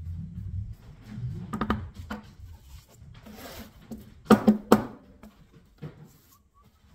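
A metal putty knife scraping loose sawdust across a painted board, then three sharp knocks as the board is rapped on its edge against the table to shake off the excess sawdust, and a lighter tap near the end.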